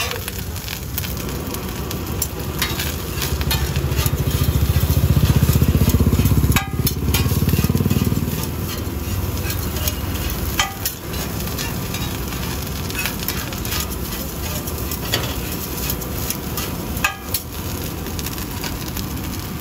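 Fried rice sizzling in a wok, stirred with a metal spatula that scrapes and clanks against the pan every so often. A louder low rumble builds about three seconds in and falls away around eight seconds.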